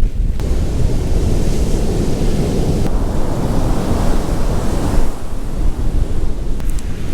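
Hurricane-force gusts buffeting the microphone with a heavy low rumble, over the rush of storm surf breaking on the beach.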